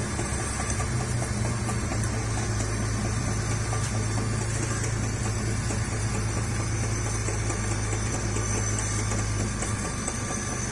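Metal lathe running with its chuck spinning a shaft and welded flange: a steady low mechanical hum, easing slightly near the end.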